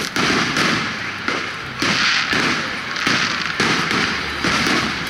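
Aerial fireworks shells bursting one after another, about a burst every half second to second, each a sudden bang trailing off in a long echo.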